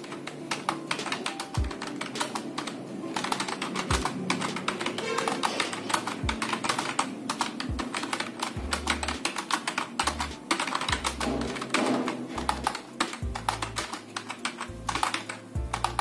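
Fast, continuous typing on a Lapcare computer keyboard, a rapid run of key clicks, over background music with a low bass beat.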